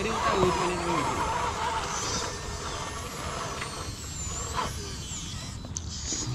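Electric motor and geared drivetrain of a 1/10 scale MST CFX RC crawler whining as it climbs over a rock, the pitch bending up and down, with a light knock a little past the middle.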